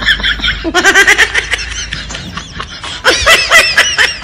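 High-pitched giggling laughter, a quick string of short laughs that comes in two runs, the second near the end.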